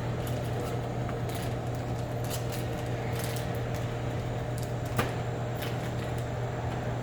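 Snack packages and wrappers being handled while a vending machine is stocked: light rustling and scattered clicks, with one sharper click about five seconds in, over a steady low hum.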